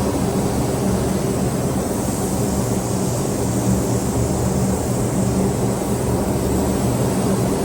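Steady machine hum with an even hiss over it, holding at one level throughout.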